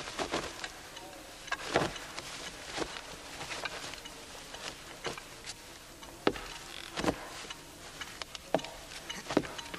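An overcoat being taken off and hung up: cloth rustling, with scattered, irregular knocks and clicks of footsteps and handling.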